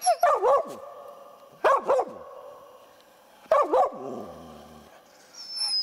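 Hunting laika barking in single spaced barks, about one every two seconds, each bark trailing off in the woods; the dog is barking up at a marten in the trees while it works out which tree the animal is in. A thin high call sounds near the end.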